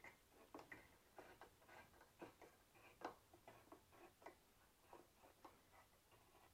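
Faint, irregular little clicks and ticks, two or three a second, as the threaded screw of a monitor mount's desk clamp is turned by its T-handle knob and snugged up.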